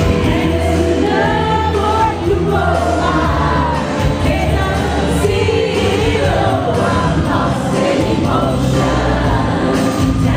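Live 1980s freestyle pop performance played loud over a PA: a singer's melody over a steady synth-and-drum backing with a heavy bass.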